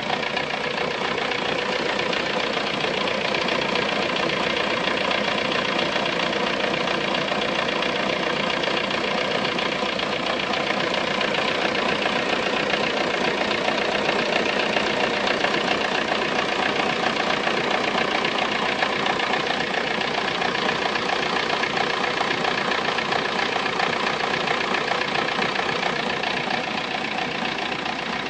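Volkswagen Golf 3 engine running steadily at idle, with a somewhat strange noise that its owner wants identified.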